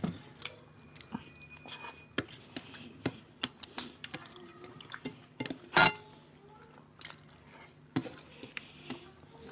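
People eating fish and rice with their fingers from steel plates: wet chewing and mouth noises with many short clicks and scrapes of fingers on the plates. One louder sharp noise comes a little under six seconds in.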